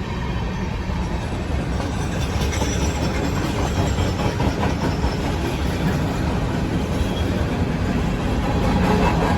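Norfolk Southern freight train rolling by, a steady rumble of wheels on rail that grows a little louder near the end.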